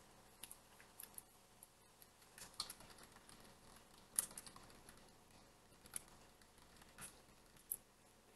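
Faint computer keyboard typing: scattered, irregular key clicks as a short name is typed.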